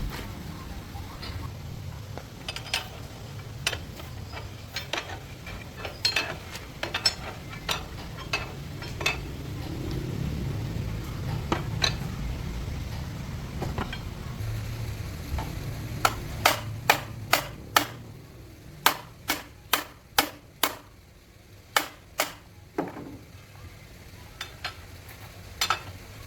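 Sharp metallic taps and clicks of hand tools on metal parts, scattered at first and then in quick runs of about three a second in the second half, over a low rumble that fades about two-thirds of the way in.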